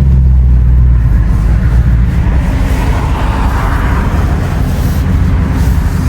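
Dodge Charger Scat Pack's 6.4-litre 392 HEMI V8, with its mid-muffler deleted, running as the car pulls away. It is a deep, steady exhaust rumble that turns rougher and broader after about a second.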